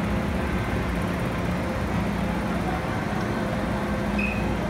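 MTR metro train running along the platform, a steady rumble with a low electric hum.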